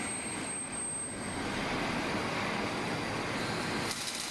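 Robotic arc welding on a steel hydraulic cylinder tube: a steady hiss of arc and shop noise, with the arc's rapid crackling rising near the end.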